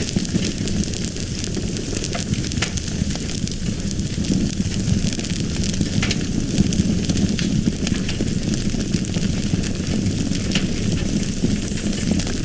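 Fire burning with a steady low rumble and frequent small crackles and pops.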